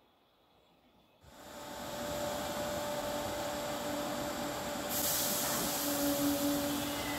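A Merseyrail Class 507 third-rail electric multiple unit running into a station platform. After about a second of faint background, its noise comes in suddenly and holds steady with a constant whine, turning hissier about five seconds in.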